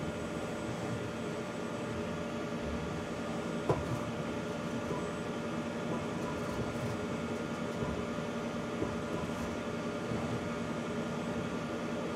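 Steady hum of a CNC milling machine's drives and fans as it runs a touch-probe vector calibration cycle, with a faint click about four seconds in.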